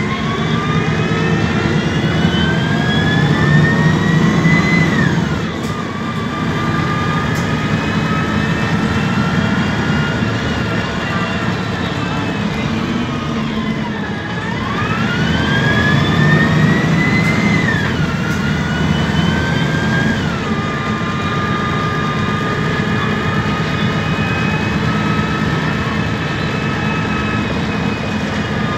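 MAN Lion's City G CNG articulated bus's natural-gas engine and Voith automatic gearbox under way, under a steady low engine drone. It pulls away with a rising whine that drops sharply on an upshift about five seconds in. It slows, the whine sinking around the middle, then accelerates again with two more upshifts and cruises on evenly.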